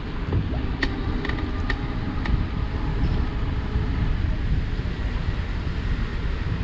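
Wind rushing over the microphone while riding a Cowboy C4 e-bike, with about four sharp creaks or clicks from the crank or bottom bracket in the first two and a half seconds.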